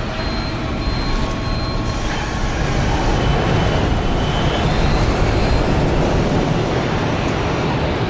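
Film sound of a small jet rolling along a road bridge just after landing: a steady heavy engine roar and rumble that swells a little in the middle.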